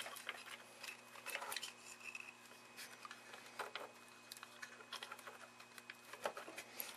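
Faint small metal clicks and scrapes from a small flat-bladed screwdriver prying at the metal tab that holds the back cover onto a potentiometer. A steady low hum runs underneath.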